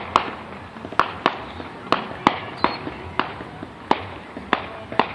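Fireworks bursting: a quick run of sharp bangs, about two a second at uneven spacing, each with a short echoing tail.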